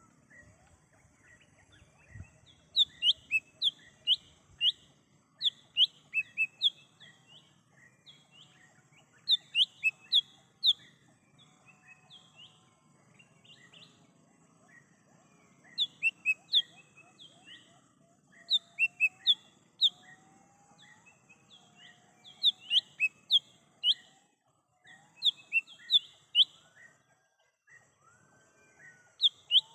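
Cucak hijau mini, a small green leafbird, calling: quick phrases of three to seven sharp, down-slurred chirps repeated every few seconds. Fainter whistles from other birds and a steady high hiss sit behind them.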